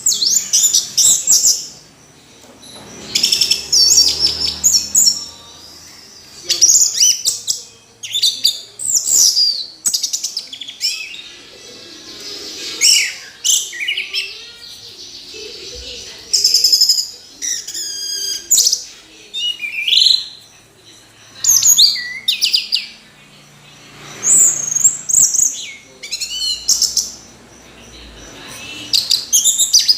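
Orange-headed thrush singing: a run of varied high whistled phrases and rapid chirps, each phrase about one to two seconds long, with short pauses between them.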